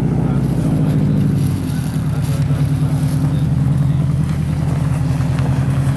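Subaru WRX STI rally car's turbocharged flat-four engine idling loudly and steadily. About a second and a half in, the idle drops slightly and settles into an even pulse.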